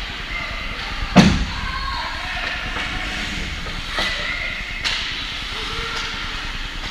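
Game-time crowd noise with background voices, broken by one loud sharp knock about a second in and two lighter knocks near the end.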